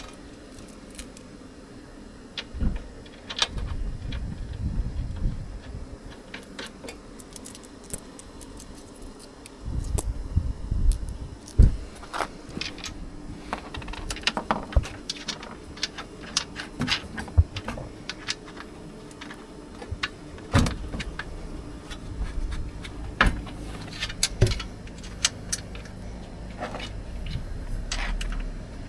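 Small metal nuts and washers clinking and rattling as they are handled and fitted onto the seat base's mounting bolts, many short irregular clicks, with a few dull thuds now and then.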